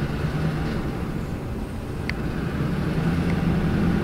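A vehicle engine running steadily with a low hum and rumble, with one faint short squeak about two seconds in.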